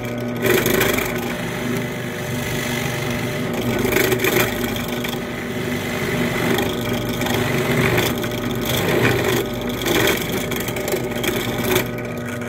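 Benchtop drill press motor running with a steady hum while its bit bores pilot holes into a wooden seat. Rough cutting noise comes and goes several times as the bit is fed into the wood.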